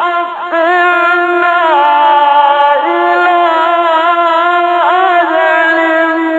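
A male Quran reciter chanting in the melodic mujawwad style, holding long notes with wavering ornaments, with a brief break about half a second in. The old recording is dull, with no high treble.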